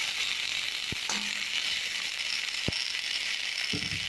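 Fara dumplings sizzling in oil in a kadhai, a steady hiss, with a few sharp clicks of a perforated steel spatula against the pan as they are stirred.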